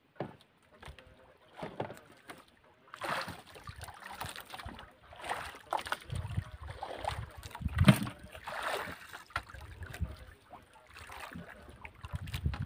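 Irregular gusts of wind buffeting the microphone, with water sloshing and splashing against the hull of a wooden outrigger boat drifting at sea; no engine running.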